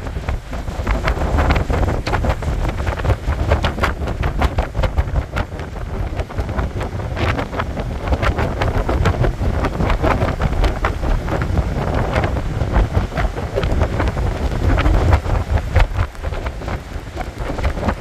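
Strong wind buffeting the microphone in irregular gusts, over the rush of heavy surf breaking on the shore.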